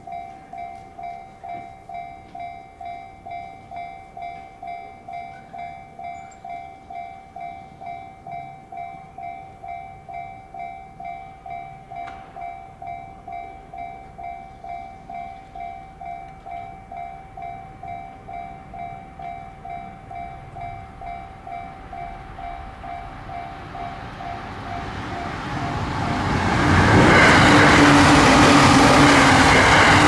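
Japanese railway level-crossing alarm ringing its electronic bell, about two strikes a second. Near the end a limited express Azusa train (E353 series) comes up and passes at speed, its running noise rising and drowning out the bell.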